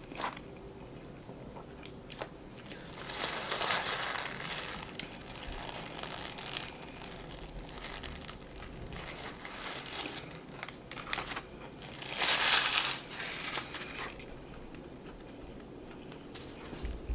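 Close-miked eating of a crispy fried chicken sandwich: crunchy bites and chewing, with its paper wrapper crinkling. The sound comes in two louder stretches, about three seconds in and, loudest, about twelve seconds in.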